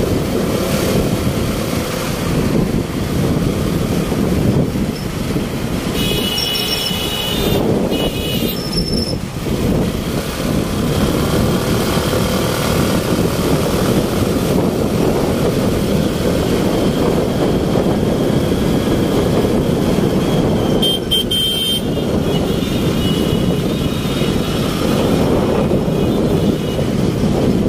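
Road traffic heard from a moving motorbike: a steady rush of engine, tyre and wind noise, with vehicle horns honking about six seconds in and again about twenty-one seconds in.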